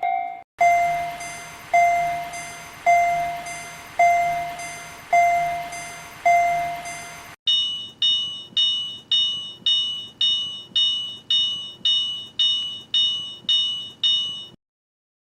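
Railroad crossing warning bells. A low bell rings slowly, about once a second, six strokes with a hiss behind them. It cuts to a higher-pitched bell ringing faster, about two and a half strokes a second, which stops about a second before the end.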